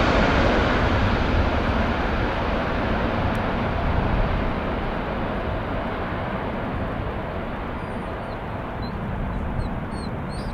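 Airbus A380's four jet engines at takeoff power, a broad rushing rumble that fades steadily as the airliner climbs away. Small birds chirp faintly near the end.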